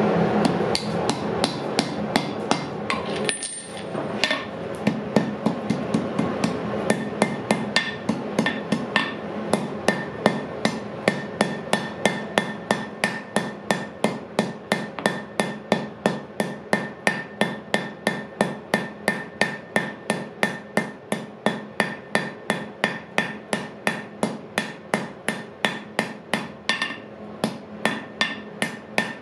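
Hand forging hammer striking a red-hot iron rod on the steel anvil. The blows come in a steady rhythm of about two to three a second, with a short pause about three seconds in and another near the end.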